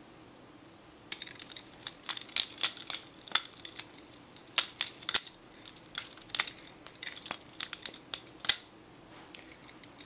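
Steel-handled balisong (butterfly knife) being flipped by hand, starting about a second in: a rapid, irregular run of sharp metallic clicks and clacks as the handles swing around the blade and knock together.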